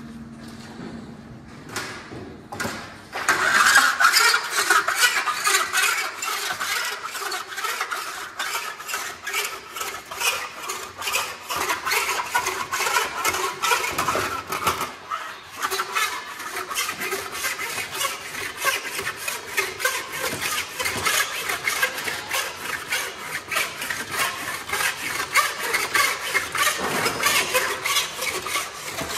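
A handheld power tool working along the edge of a sheet-metal panel, starting about three seconds in and running steadily with rapid, even strokes.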